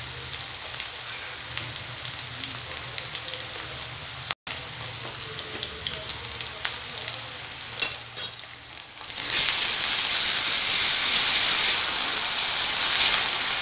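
Chopped onions, dried red chillies and ginger-garlic paste frying in hot oil in a kadai, a steady sizzle with light crackles. About nine seconds in the sizzle grows much louder as the mixture is stirred with a wooden spatula.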